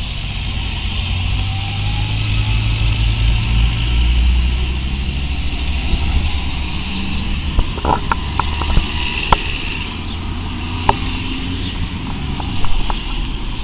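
Team cars in a race convoy driving slowly past, with a steady engine rumble and road noise. A few sharp clicks come in about two-thirds of the way through.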